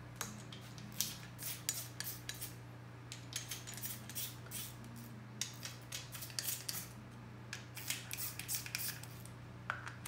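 Hand ratchet clicking in short, irregular runs, with light metal clinks of the socket on the bolt heads, as 12 mm bolts are run into a billet aluminium thrust-setting tool on a Duramax engine block.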